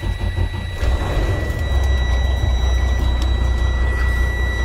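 Semi truck's diesel engine running just after start-up, heard from inside the cab as a steady low rumble. A steady high-pitched warning buzzer sounds over it, with the brake-air warning lamp lit.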